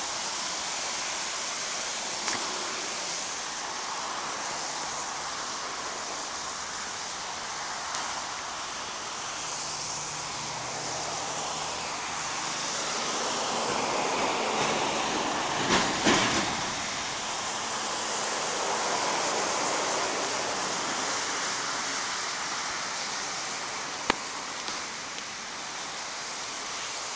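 Steady road-traffic noise: tyre hiss from cars on wet pavement, swelling as vehicles go by and loudest about halfway through, when one passes close. There are a few faint clicks.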